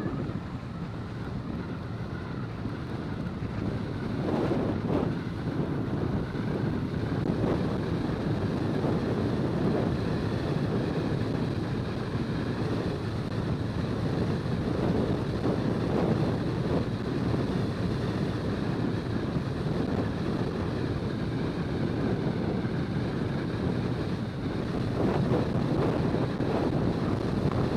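Steady road noise from a car driving along a highway: tyre rumble and wind rushing over the microphone, growing a little louder over the first few seconds as the car speeds up.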